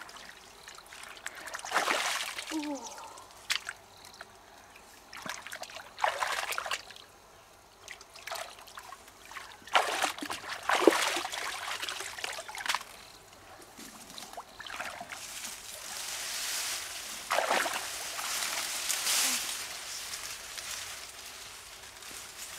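Water sloshing and trickling in short, irregular splashes, with a few sharp clicks between them.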